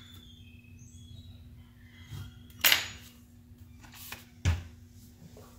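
Plastic housing of a 1999 Nissan Frontier instrument cluster being turned over and handled on a workbench. Faint squeaks and rubbing come first, then a sharp clack a little under three seconds in, and a duller knock about a second and a half later.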